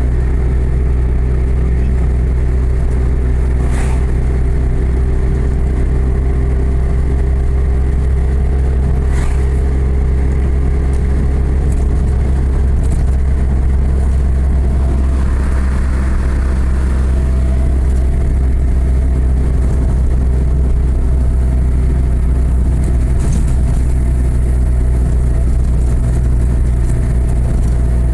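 A motor vehicle running at steady speed: a constant low engine and road drone with a few light clicks and rattles.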